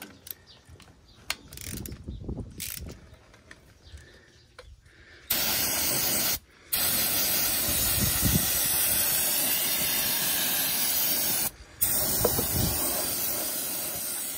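An aerosol can of ether starting fluid sprays in long, loud hisses onto a truck wheel hub to clean it. The spray starts about five seconds in and stops briefly twice. Before that come a few light metal clicks and knocks from a wrench on the hub.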